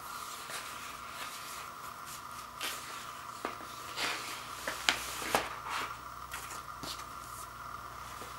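Paper rustling and scraping as a vinyl LP is handled and slid into a black paper inner sleeve, with several sharp clicks and taps, the loudest about five seconds in.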